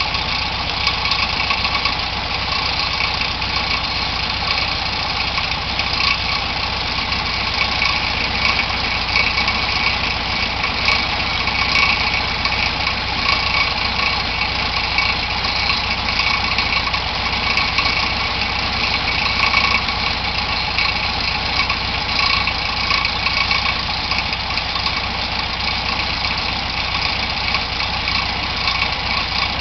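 Volkswagen Kombi engine idling steadily, running smoothly with no odd noise now that a loose bolt on the alternator has been tightened.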